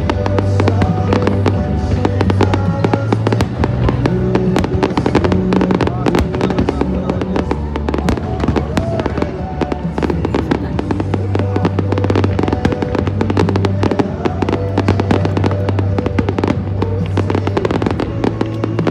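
Fireworks display: a rapid run of bangs and crackling bursts over the show's accompanying music, with a steady bass.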